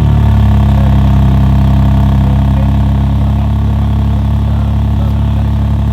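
BMW M3 G80 Competition's twin-turbo inline-six idling steadily and loud through an R44 Performance aftermarket exhaust, with a deep even drone.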